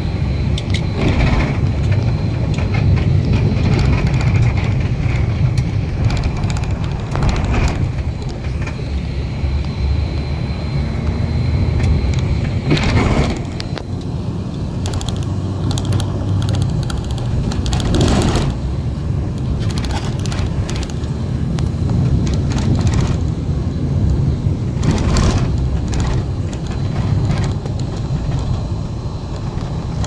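Car cabin noise while driving: a steady low engine and road rumble, with several brief louder surges of noise spread through.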